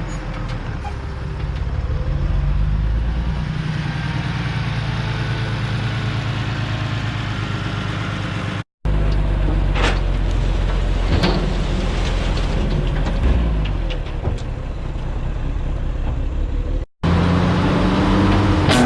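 Yanmar ViO80 excavator's diesel engine running steadily while it grades, with a few sharp scrapes or clanks from the bucket partway through. The sound breaks off to silence for a moment twice.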